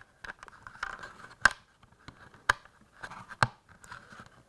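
Thin plastic brick sheet being flexed and fed by hand into the grooves of a plastic model viaduct arch: scratchy rubbing with sharp clicks as it snaps against the moulding, the three loudest about a second apart.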